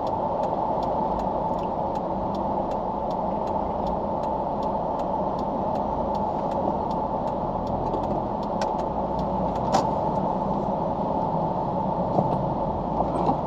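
Car engine and road noise heard from inside the cabin while creeping forward in heavy traffic: a steady low rumble. A faint regular ticking, about two a second, runs underneath.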